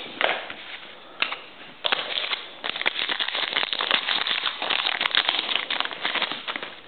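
Trading card pack wrapper being torn open and crinkled by hand, a dense run of fast crackling that starts about two seconds in and stops near the end.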